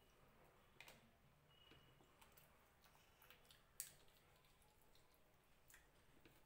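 Faint hand-eating sounds: fingers mixing rice and fish on a tray, then a bite taken and chewed. A few soft clicks and smacks, the sharpest about four seconds in.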